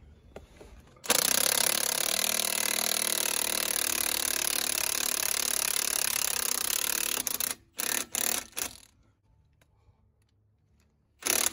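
Milwaukee M18 Fuel 3/4-inch cordless impact wrench hammering for about six seconds as it drives the forcing screw of a U-joint puller, pressing a U-joint bearing cap out of a driveshaft yoke. It then gives four short bursts and one more near the end.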